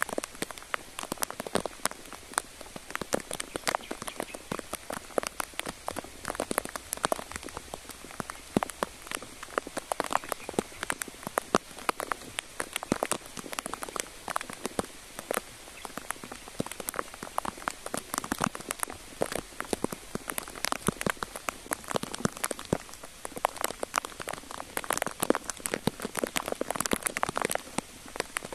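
Rain pattering: a dense, irregular stream of small drop ticks that keeps on without a break.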